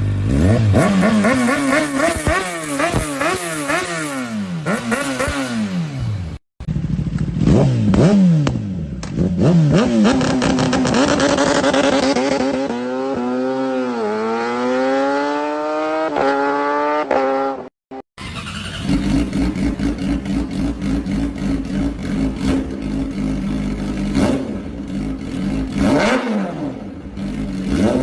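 Sport motorcycle engines revving hard in three abruptly cut segments: quick blips up and down in pitch, then a long climb and fall in pitch from about six seconds in, then a steadier run with short revs from about eighteen seconds in.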